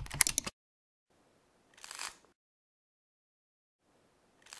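Sound effects of an animated logo intro: a dense burst of rapid clicks that cuts off about half a second in, then two short swells of rushing noise, one about two seconds in and one near the end, with silence between.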